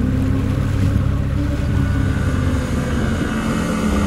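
A motor vehicle running steadily at speed: a constant low engine rumble with rushing wind and travel noise.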